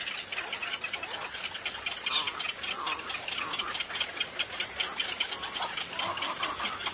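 Mixed waterbird breeding colony of spoonbills, little egrets and cormorants: a fast, even ticking clatter of nestlings begging to be fed, with scattered calls over it.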